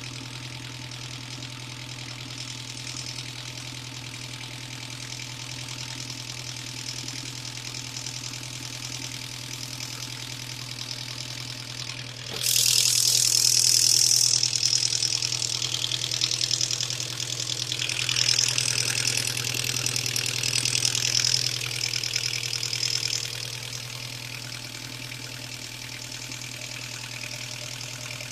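Car engine idling with a diesel-like knock that the owner suspects comes from the hydraulic lifters, on an engine whose oil pressure warning light comes on when hot. About twelve seconds in it gets louder, with a hiss over the running, for about ten seconds before settling back to the steady idle.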